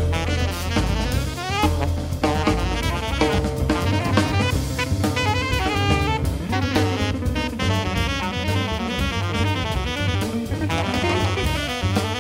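Live jazz quintet playing an instrumental passage: alto saxophone carrying the melodic line over archtop guitar, double bass and a drum kit.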